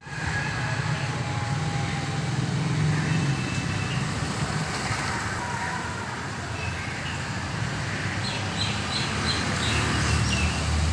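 Steady road traffic noise with a low engine rumble. Near the end, a faint run of short high chirps repeats for about a second.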